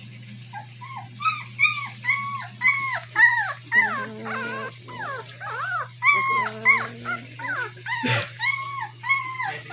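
Newborn German Shepherd puppies whining and squeaking in a rapid series of short, arched cries, about two or three a second, with a few longer, lower whines among them: the crying of hungry pups.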